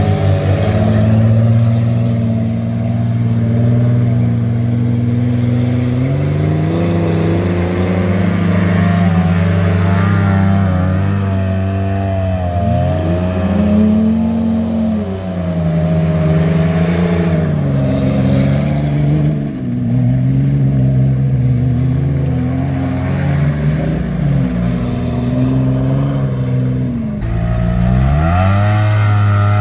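Engines of a Jeep and a side-by-side UTV running in thick mud, revving up and down over and over.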